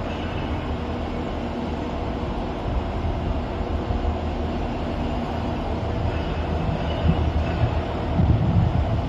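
A train running with a steady low rumble and a faint steady hum, growing louder near the end.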